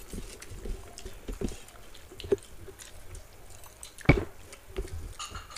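Close-up eating by hand: chewing, with soft wet smacks and small clicks as fingers mix rice and curry on steel plates. One sharper knock about four seconds in.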